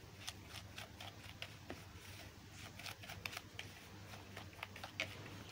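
Faint, irregular scraping and clicking of a plastic spoon against a plastic bowl as steamed pumpkin is mashed and stirred with sugar, over a low steady hum.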